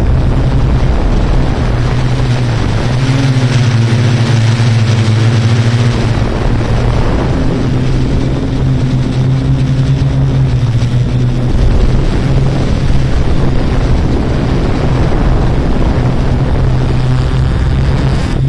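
Yuneec Q500 4K quadcopter's electric motors and propellers, a steady loud drone of a few low pitches that shift slightly, with wind rush on the microphone.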